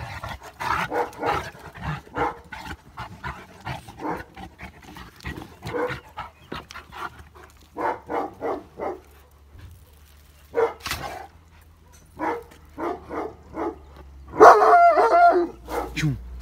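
Several dogs barking in repeated short volleys, set off by an unfamiliar car's sound. A louder, drawn-out bark comes near the end. A low steady hum comes in about ten seconds in.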